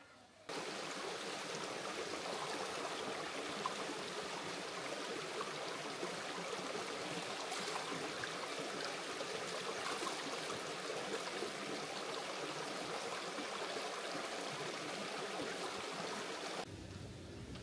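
Mountain stream rushing over rocks, a steady, dense rush of water. It starts abruptly about half a second in and cuts off shortly before the end.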